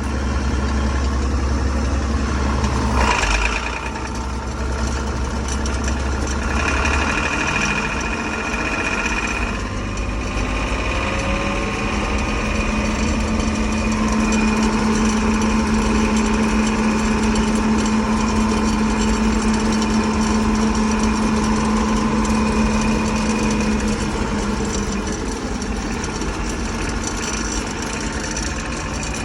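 John Deere 6600 combine's engine running steadily, with a change in its hum about ten seconds in.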